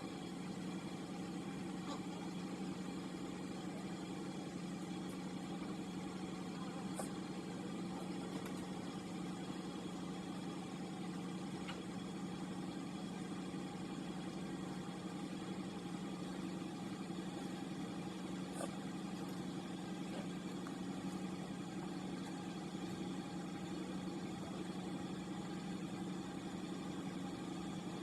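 Steady low mechanical hum, unchanging throughout, with a few faint clicks.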